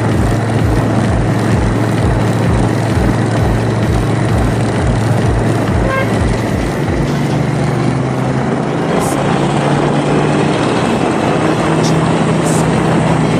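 Motorbike running on the road, its engine note steady and then a little higher past the middle, with wind buffeting the microphone. A short horn beep comes about six seconds in.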